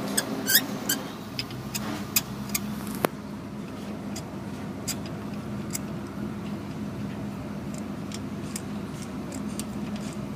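Sharp metal clicks and clinks of tools and parts being handled, with one ringing clink about half a second in and fewer ticks after about three seconds, over a steady low hum.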